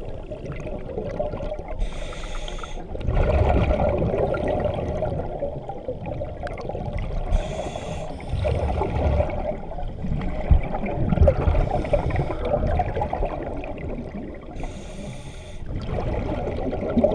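Scuba diver breathing through a regulator underwater: three short hissing breaths in, each followed by several seconds of bubbling exhalation.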